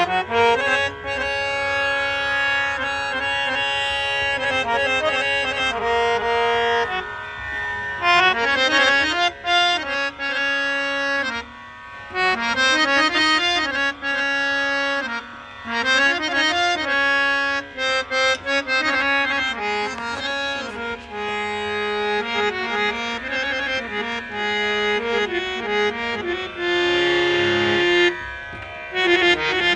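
Harmonium playing a slow, ornamented Hindustani melody, with sustained reed tones and long held notes. The instrument has just been fully repaired and restored.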